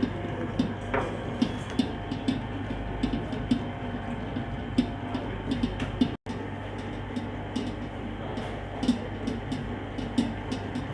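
Electric dough mixer running with a steady hum while it kneads bread dough. Irregular clicks and knocks come from the dough and the hook working in the bowl. The sound cuts out briefly about six seconds in.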